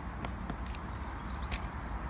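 A few light, sharp clacks and taps, spaced irregularly, over a steady low rumble.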